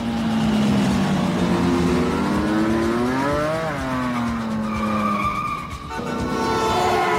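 Ducati 916 sport bike engines revving hard, climbing in pitch to a peak about three and a half seconds in and then dropping away. In the second half comes a car's tyre squeal as it swings through a turn.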